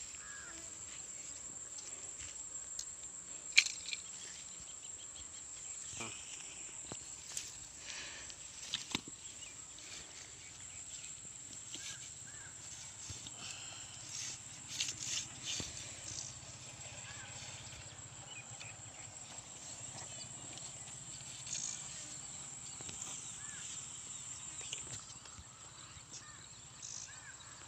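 Outdoor ambience with a steady high-pitched insect drone, overlaid by scattered rustles and clicks as a caught catfish is handled on the grass, with one sharp knock about three and a half seconds in.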